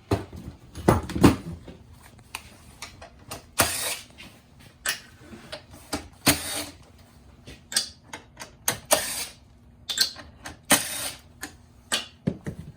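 Irregular clicks, taps and short scraping noises of a Lexus GX460 navigation unit's plastic housing being handled and taken apart, with several longer scrapes spread through.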